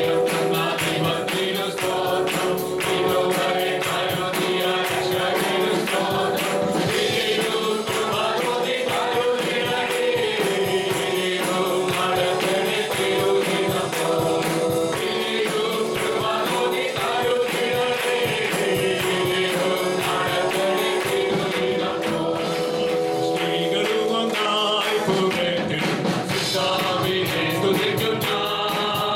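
Live praise and worship music: a group of voices singing together over a band with a steady, driving beat.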